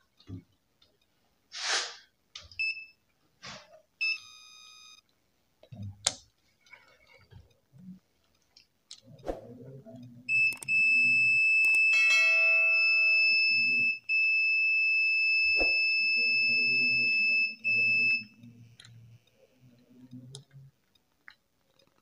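Digital clamp meter beeping. A few short beeps in the first few seconds, then a steady, high continuity tone lasting about eight seconds while the test probes are held on the washing machine pressure sensor's terminals, signalling a closed, low-resistance path. Light clicks of the probes touching come between the beeps.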